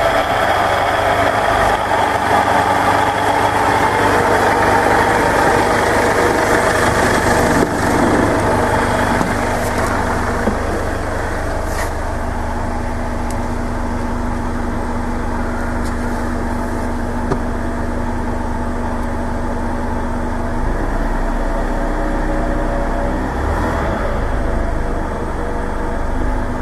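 Driveline noise of a 2010 Ford Ranger twin cab on the move at around 30 to 40 km/h, heard from inside the cab: a steady running noise with a held drone. It is a mixture of a noisy driveshaft centre bearing and the slip yoke rattling on its spline.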